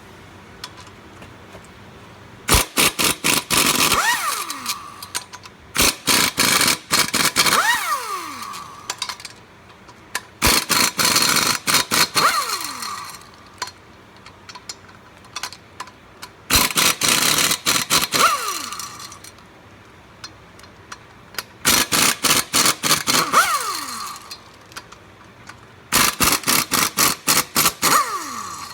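A power tool run in six short bursts of rapid hammering clicks, each ending in a falling whine as it spins down.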